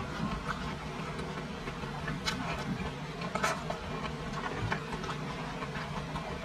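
Close-miked chewing of braised meat with the mouth closed: soft wet mouth clicks and crackles, with louder ones about two and three and a half seconds in, over a steady low hiss.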